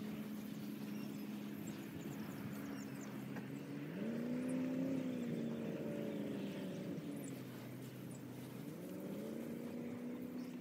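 An engine running steadily; its speed rises about four seconds in, drops back lower a couple of seconds later, and picks up again near the end.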